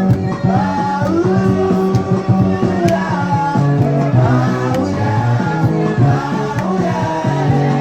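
Music with singing over guitar and a steady bass line.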